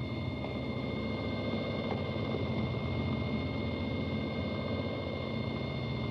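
Steady mechanical drone with a thin, high whine held through it.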